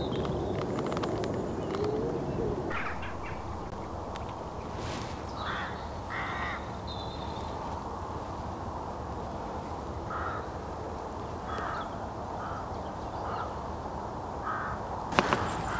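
Crows cawing in short, scattered calls, about ten of them, over a steady low rush of background noise. A sharp knock sounds near the end.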